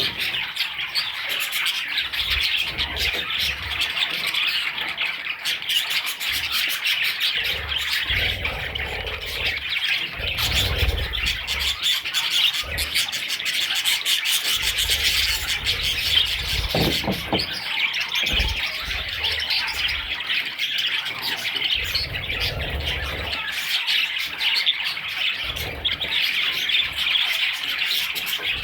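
Budgerigar chicks chirping and chattering continuously in a dense, high twitter. Low rumbles come and go underneath.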